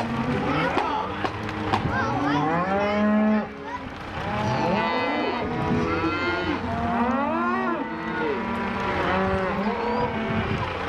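Cattle mooing and bawling, one long call after another with several overlapping, each rising and then falling in pitch.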